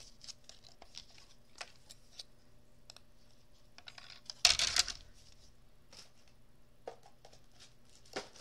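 Small clicks and rustles of cardstock, a clear cutting plate and metal dies being handled on a craft desk, with one louder half-second scraping rustle about halfway through and a couple of sharper clicks near the end.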